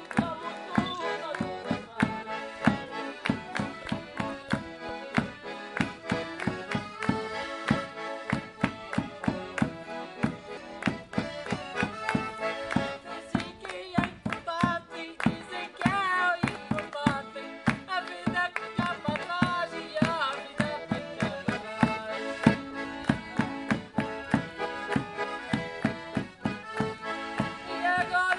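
Live Madeiran folk dance music: accordions playing a tune over a steady drum beat.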